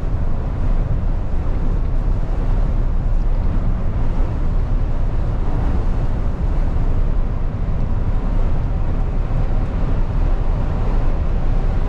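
Steady cab noise of a MAN TGX lorry at motorway speed on a wet road: diesel engine drone, tyre hiss on wet tarmac and wind against the cab, heaviest in the low end.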